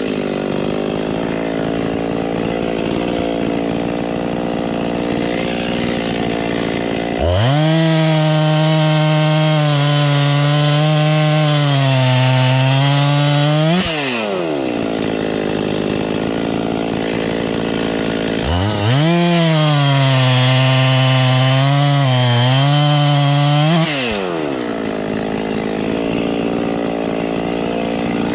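Chainsaw running, twice bogging down to a lower, wavering pitch for about five or six seconds as it cuts through a limb of a fallen tree, then climbing back as it comes out of the cut.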